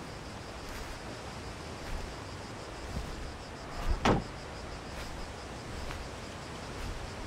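Steady outdoor hiss with a faint insect buzz. About four seconds in, a single quick whoosh falls from high to low.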